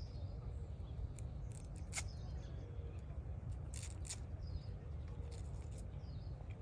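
Outdoor ambience: a steady low rumble with faint bird chirps. A sharp tick comes about two seconds in, and two quick high swishes come about four seconds in.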